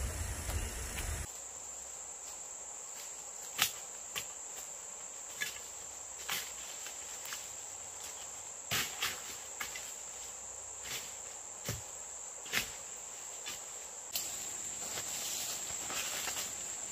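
A steady high-pitched insect drone, with scattered sharp crunches and snaps of footsteps on dry bamboo leaves and twigs, and more continuous leaf rustling near the end.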